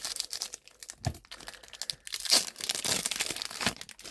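Foil Pokémon booster pack wrapper crinkling and tearing as it is opened by hand, with the loudest crackle in the second half.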